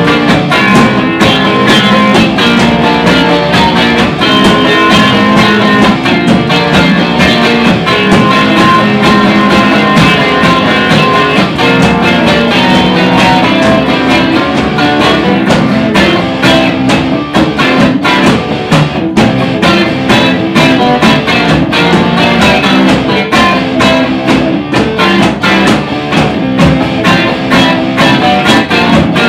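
Soul-blues instrumental: two guitars playing over a drum kit.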